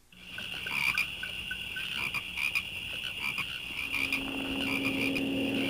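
Night swamp ambience: frogs croaking and peeping over a steady high chirping of insects. A low steady hum joins about four seconds in.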